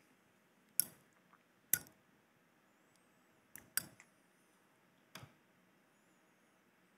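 About five sharp, separate clicks at uneven intervals over a faint steady hiss; the first two are the loudest.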